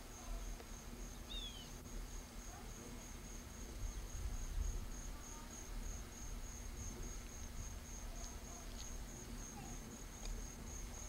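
Steady chorus of insects trilling outdoors: a high, shrill note pulsing evenly about three times a second, over a low rumble on the microphone.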